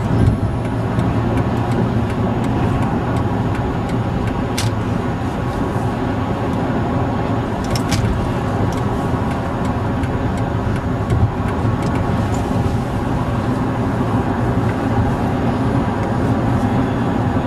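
Car cabin at highway speed: steady engine and tyre road noise, with a couple of sharp clicks.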